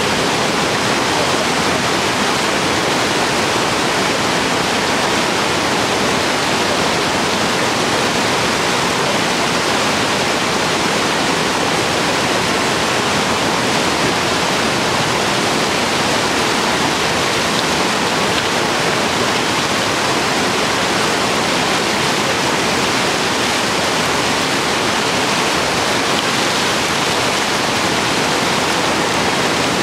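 Whitewater rapids rushing over and around large boulders: a loud, steady wash of water noise that does not change.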